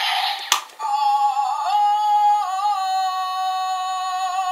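Zyuoh Changer toy's electronic sound chip playing a long held synthetic sung note through its small speaker, dipping in pitch a few times before cutting off suddenly near the end. A plastic click comes just before it starts.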